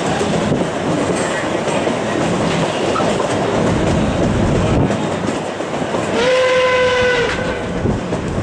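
Narrow-gauge steam train rolling, with steady wheel and rail noise, then one steam whistle blast of about a second, about six seconds in, from the train's locomotive, K-27 2-8-2 Mikado #463.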